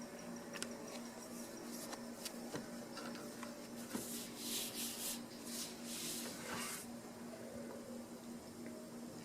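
Soft rustling with a few light clicks, strongest for a few seconds around the middle, over a faint steady hum.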